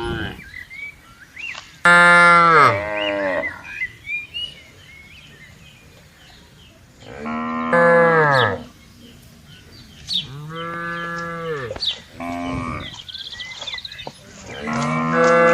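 Cattle mooing: five long moos with quiet gaps between them, each rising and then falling away in pitch. The loudest comes about two seconds in, and the last is cut short at the end.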